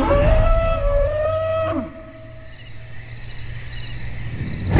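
Sound-effect dinosaur call: one long pitched call of almost two seconds that bends slightly upward and then drops off, over an ambience of chirping insects. A second loud call begins right at the end.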